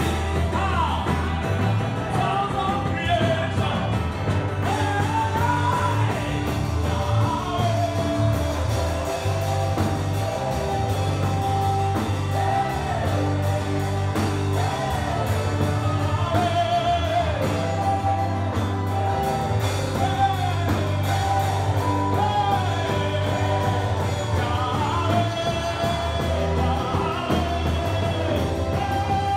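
Live gospel music: a singer's voice gliding over a band, with sustained bass notes that change every couple of seconds.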